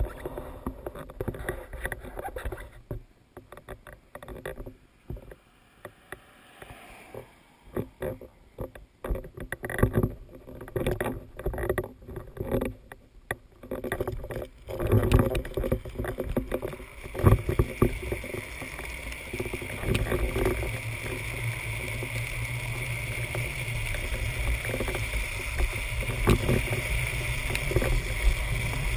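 Irregular knocks and rattles of a backpack-mounted camera pole being handled, then a drift trike rolling down an asphalt road: steady rolling and wind rush on the camera, growing louder as it picks up speed.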